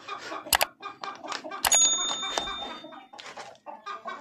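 Metal clicks and clinks from a small padlock and door hasp being unlocked and worked by hand, with one clink about a second and a half in that rings briefly like a little bell.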